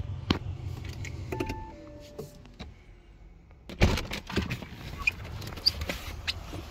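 The 2017 Audi S8's twin-turbo 4.0-litre V8 idling, then switched off about a second and a half in, its note winding down while the car gives a two-note chime, high then low. About four seconds in the driver's door unlatches and swings open with a loud clunk, followed by a few small clicks.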